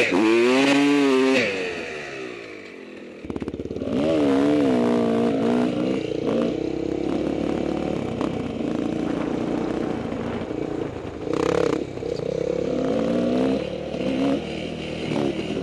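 Two-stroke dirt bike engine, a Husqvarna WR300, revving hard with the pitch rising and falling as the throttle is worked, then easing off about two seconds in. After an abrupt change it runs again at a lower pitch, with the revs climbing and dropping a few more times.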